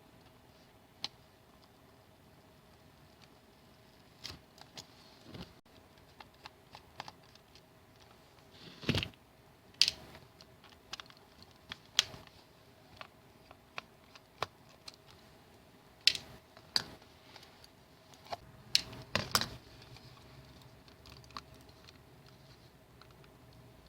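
Irregular sharp clicks and taps of small tools against plastic mouse parts as a Razer Lancehead wired mouse is taken apart, a few of them louder, with no regular rhythm.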